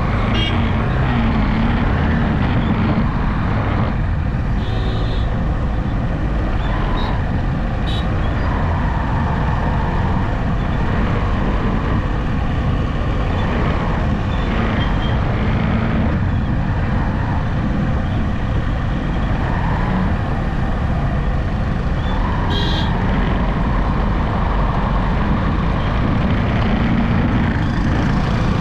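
Steady road noise, wind and engine hum of a vehicle driving at speed, with a few brief faint high-pitched sounds scattered through it.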